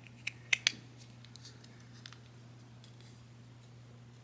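A few sharp plastic clicks as snap-fit model-kit pieces are pressed together, the two loudest close together under a second in, followed by faint handling ticks over a steady low hum.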